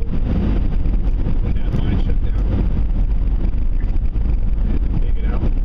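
A motor vehicle driving: a steady, loud, low engine and road rumble, with faint voices underneath.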